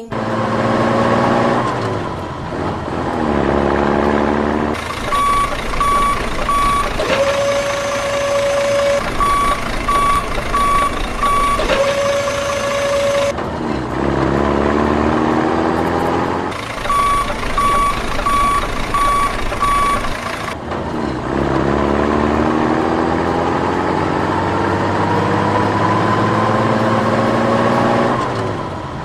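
Truck sound effects: a heavy engine revving, its pitch rising and falling several times with one long slow rise near the end. Three spells of reversing beeps, with two held horn-like tones between them.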